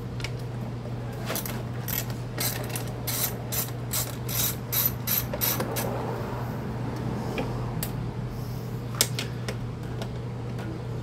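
Ratchet wrench clicking in a quick run of about three to four clicks a second as a recoil starter mounting bolt is backed out, with a few more clicks near the end. A steady low hum runs underneath.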